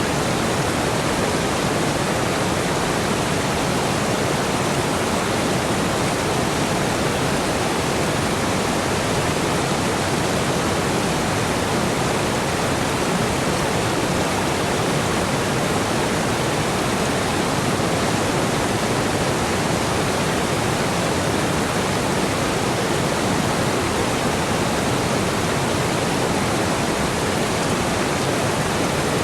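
Flowing water rushing steadily, an even, unbroken hiss with no separate splashes or drops.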